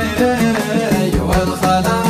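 Arabic sheila, a chanted love song: a sung vocal line with Middle Eastern melodic turns over a steady percussion beat.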